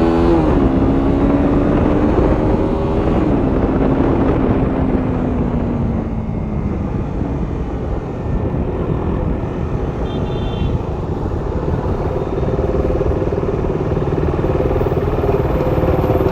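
KTM RC 200's single-cylinder engine on a ride. About half a second in it comes off a rev, and its note then falls slowly for several seconds under a rushing noise. In the last few seconds it settles back into a steady, higher pitch.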